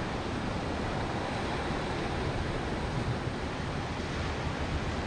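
Sea surf washing and breaking over dark rocks at the foot of a cliff, a steady rush of water with a low rumble, and wind buffeting the microphone.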